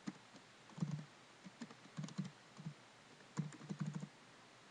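Typing on a computer keyboard: uneven runs of keystrokes with short pauses between them.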